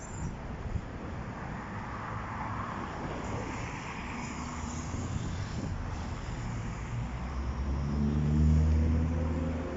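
Street traffic: road vehicles pass with a steady rush. About eight seconds in, a louder vehicle engine hums at a low pitch that rises slightly as it draws close.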